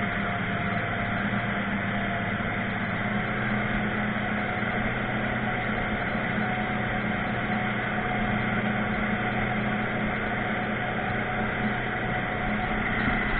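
A 250 hp outboard motor running steadily at speed while towing, giving an even low hum over the rush of water from the wake.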